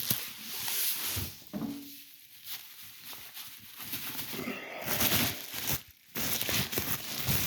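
Wrapping being torn and crinkled off a parcel by hand, in irregular rustling bursts.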